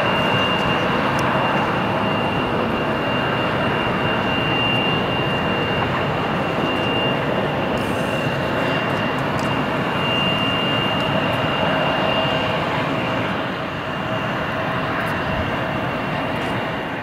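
Embraer 170's two General Electric CF34-8E turbofans running at taxi power: a steady jet rush with a high, even whine held on top.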